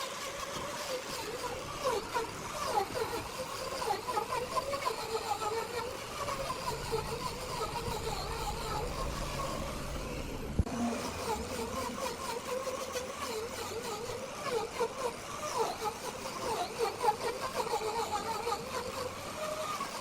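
Workshop machinery running: a steady mechanical drone with a wavering whine, and an abrupt change in the sound about halfway through.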